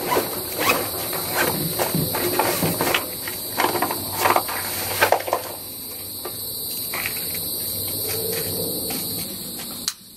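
Steady high-pitched drone of insects from the summer trees, with rustling and a run of clicks from gear being handled over the first half. A single sharp click comes near the end.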